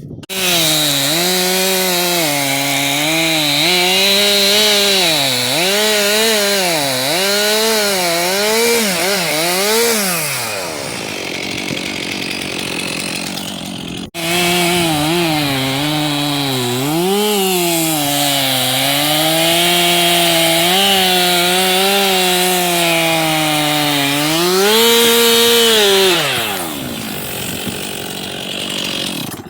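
Two-stroke chainsaw cutting wood at full throttle, its engine note dipping and recovering as the chain bites. It lets off and winds down about ten seconds in. After a sudden break, it cuts again, wavering the same way, and winds down near the end.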